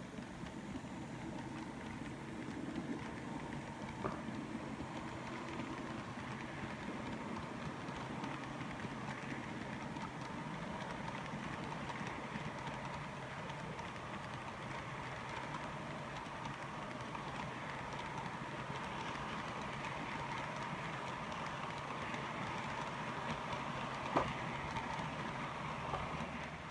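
A model passenger train running on track: a steady hum of the small locomotive motor and the rolling of the wheels, with a sharp click about 24 seconds in.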